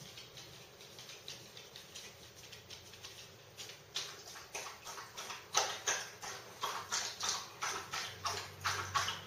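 A dog out of view making a run of regular clicking and tapping sounds, about two to three a second, faint at first and getting louder from about four seconds in.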